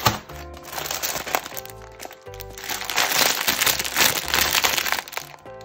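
Plastic bags of tiny nano building bricks crinkling and rustling as they are handled, with short crackles, over background music with held chords.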